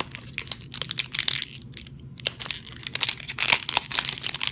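Clear plastic shrink-wrap crinkling and tearing as it is peeled off a small toy box by hand, in irregular crackles that grow denser and louder about three seconds in.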